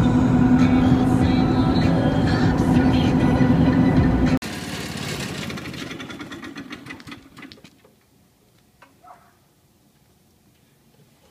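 Loud steady drone of a vehicle on the road, heard from inside the cab, with a constant low hum. It cuts off abruptly about four seconds in, leaving a faint fast ticking that fades away to near silence.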